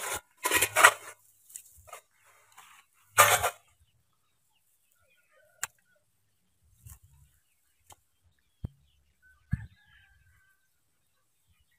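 A freshly caught fish thrashing on dry grass and in a metal basin of water as it is handled: two brief splashing, rustling bursts, one early and one about three seconds in, then only a few small scattered taps.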